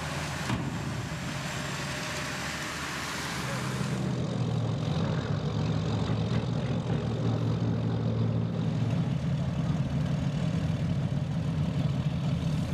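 A bridge bay splashing into the water as a wide rushing wash of noise, with one sharp knock about half a second in. About four seconds in it gives way to a bridge erection boat's engine running steadily with a low hum.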